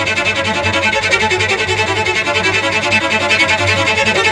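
Cello music: a fast, driving riff of rapidly repeated bowed notes over a steady low bass.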